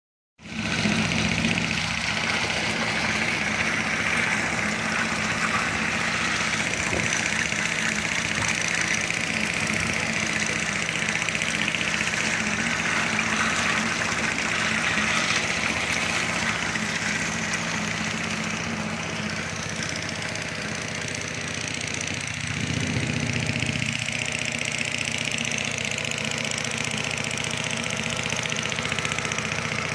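An engine running steadily at a constant speed, with a thick slurry of cow dung and water pouring from a pipe and splashing into a drum.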